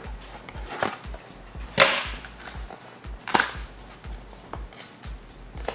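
A glued cardboard box being pried open: a few irregular sharp cracks and tears as the glued flaps give, the loudest about two and three and a half seconds in.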